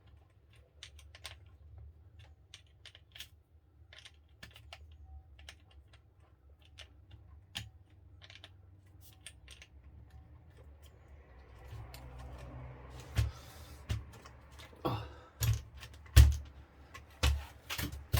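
Small clicks and taps of plastic RC car kit parts being handled, then a rustle and several sharper knocks in the last few seconds as parts are clipped into place.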